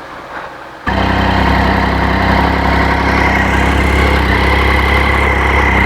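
Triumph Street Triple's inline-three engine starts about a second in and goes straight into a steady idle. It is running after throttle-body synchronisation and an ECU adaptation reset, with a temporary fix on a cracked intake rubber that was letting in unmetered air.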